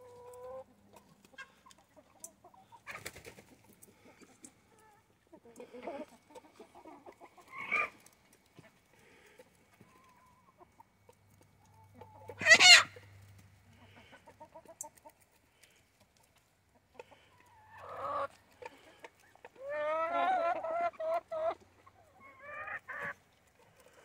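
Backyard chickens, hens and a rooster, clucking and calling in short, separate bursts while they feed. There is one loud, sharp squawk about halfway through and a run of drawn-out pitched calls near the end.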